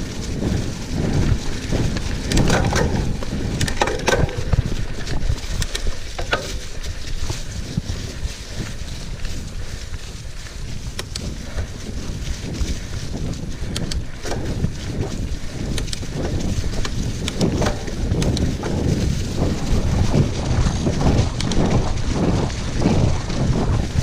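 Cube Reaction GTC hardtail mountain bike ridden fast over a bumpy, leaf-covered dirt singletrack, heard from the handlebars: a constant rattle and rumble of the bike over the rough ground, tyres crunching through dry leaves and twigs, and wind on the microphone. Sharp clicks and snaps come every few seconds.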